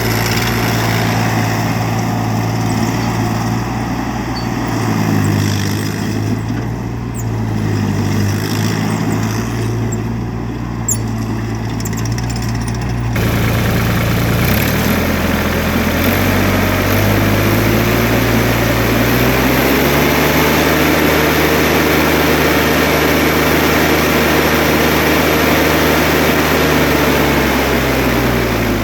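Perkins 1.4 L three-cylinder diesel engine of an ASV RT30 compact track loader running, its engine speed shifting up and down. About two-thirds of the way through it revs up and holds a higher steady speed, then drops back just before the end.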